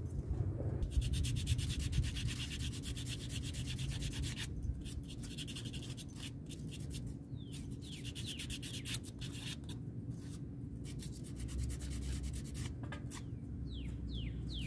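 Small wooden blocks being hand-sanded with sheets of sandpaper: fast, continuous scratching strokes.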